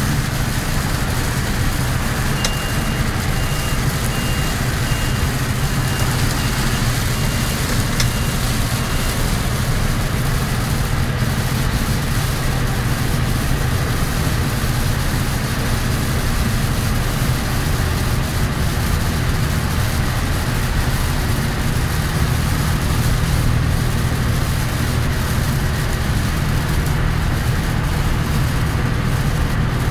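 Kenworth T350's Cummins ISC diesel engine droning steadily as the truck drives on a wet motorway, heard inside the cab, over a hiss of heavy rain and tyre spray. A short high beep repeats a little more than once a second from about two seconds in to about nine seconds.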